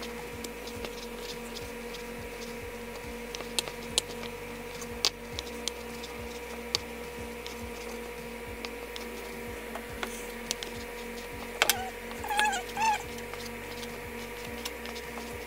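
Chef's knife cutting and dicing raw chicken breast on a wooden cutting board: irregular light taps of the blade striking the board, over a steady hum.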